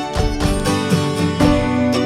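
Wake-up alarm music: a tune of plucked and strummed string notes, signalling that the 15-minute nap timer has run out.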